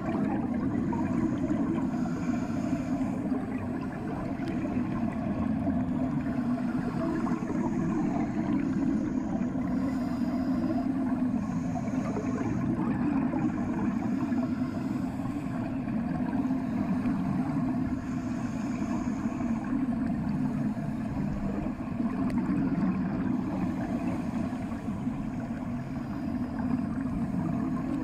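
Steady, muffled underwater rumble of bathwater around a submerged ear, with a finger rubbing and pressing at the ear in the water.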